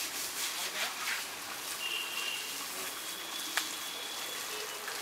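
Water running and splashing on a wet concrete floor as an elephant is bathed, with faint voices behind it. A single sharp click about three and a half seconds in.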